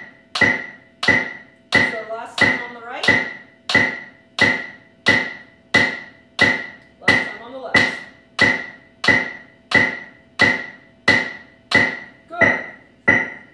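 Snare drum struck with sticks once per click of a metronome set to 90 beats per minute and played through an amp. The result is a steady, even pulse of sharp hits, about three every two seconds, each with a short ringing tail and the metronome's pitched beep on the beat.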